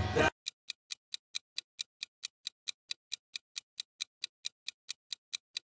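Countdown-timer ticking sound effect: quick, even ticks about five times a second, marking the answer time in a quiz.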